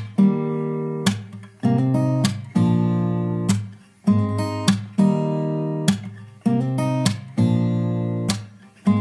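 Background music: an acoustic guitar strumming chords in a steady rhythm, each strum ringing out and fading before the next.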